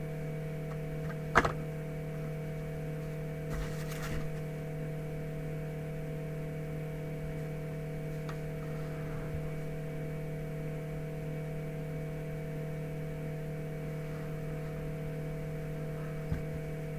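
Steady electrical hum, a constant drone made of several steady tones, with handling noises over it: a sharp tap about a second and a half in, brief rustling around four seconds in, and a small tap near the end.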